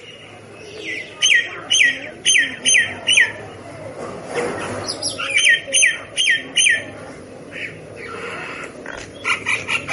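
Myna calling: a run of about five quick, falling whistled notes, a pause, then another run of about five, with a few rapid short notes near the end.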